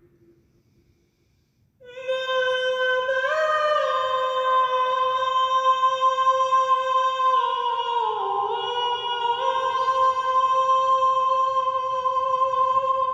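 A woman singing a long held note of intuitive chant, unaccompanied, starting about two seconds in after near silence; her pitch dips lower around the middle and then returns to the held note.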